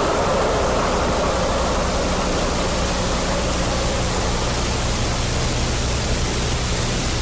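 Steady, even hiss with a faint low hum underneath: the background noise of an old film soundtrack.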